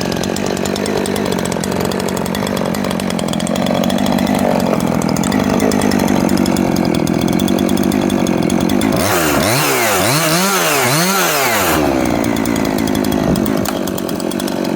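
Husqvarna 350 two-stroke chainsaw running at idle, blipped up to higher revs about three times around nine seconds in, then dropping back to a steady idle.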